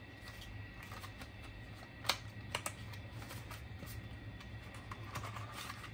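Cardboard phone packaging being handled and opened by hand: scattered light taps, scrapes and clicks, the loudest a sharp click about two seconds in and another about half a second later, over a steady low hum.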